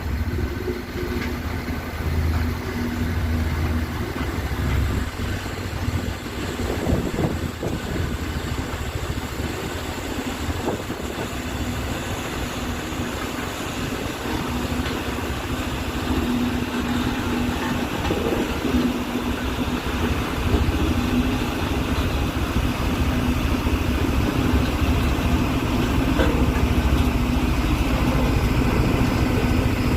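Heavy diesel earthmoving machinery running steadily, a deep engine rumble with a steady hum over it, growing gradually louder over the second half.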